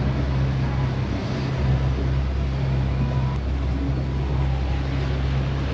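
Motorboat engine running steadily, a constant low drone with a hiss of water and wind over it.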